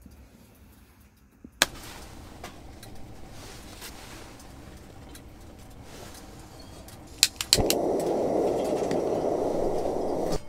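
Portable gas canister burner being lit: a few sharp igniter clicks, then the steady rush of the gas flame for about three seconds, cut off abruptly. A single sharp click comes earlier, followed by faint handling rustle.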